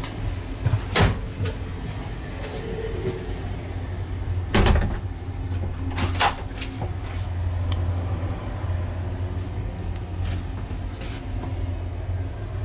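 Inside a railway carriage: a steady low rumble, with a few sharp knocks and clunks at irregular moments. There is one at about a second in, a louder one a little before the halfway point, two close together after it, and fainter ones near the end.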